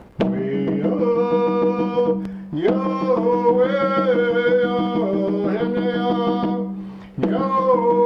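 A man singing a chant in long held notes while beating a double-headed rawhide drum with a padded drumstick. The song comes in three phrases, with short breaks at about two and a half seconds in and again near the end.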